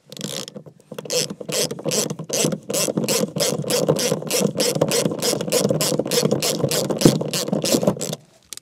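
Hand ratchet wrench clicking steadily, about three to four clicks a second, as it turns a seat-mounting bolt in through a universal socket and extension bar; the clicking stops shortly before the end.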